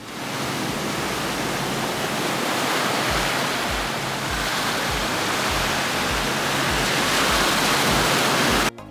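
Steady rushing noise. From about three seconds in, a faint low thump comes about twice a second. The noise cuts off abruptly near the end.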